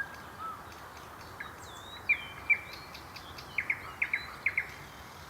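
Nightingale singing: a downward-sweeping whistle, two loud sharp notes, then a quick run of sharp clicking notes, over a steady background hiss.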